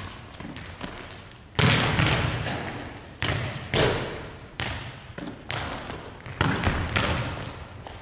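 Volleyballs being struck and bouncing on a hardwood gym floor: a run of about eight sharp smacks and thuds, each ringing out in the hall's echo. The loudest comes about one and a half seconds in.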